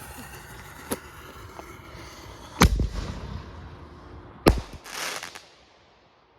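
Firecrackers going off: a small crack about a second in, then two loud, sharp bangs about two seconds apart.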